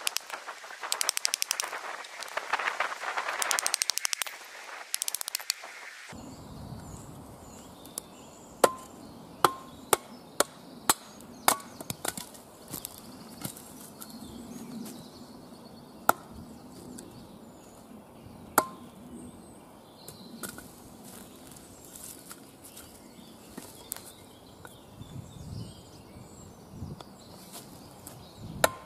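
Wooden baton knocking on the back of a Cold Steel Special Forces shovel blade, driving it down through a log to split it. The knocks are sharp and come in an uneven run, about two a second for a few seconds and then spaced further apart. The first few seconds hold denser crackling and knocking that cut off suddenly.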